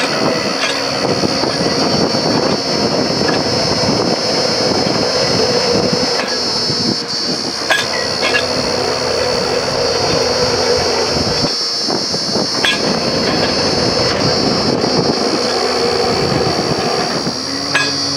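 Truck-mounted borewell drilling rig running steadily as it drills, its drill rod turning in the hole, with a few sharp knocks along the way.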